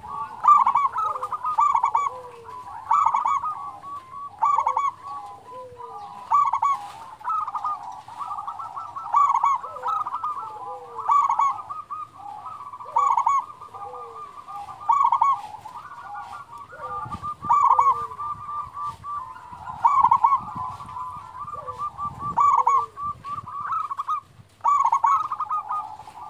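Zebra dove (local perkutut) calling steadily, loud cooing phrases repeating about every two seconds over a continuous run of rapid rolling notes.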